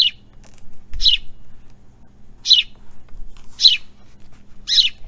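Sparrows chirping: five short, high chirps spaced about a second apart.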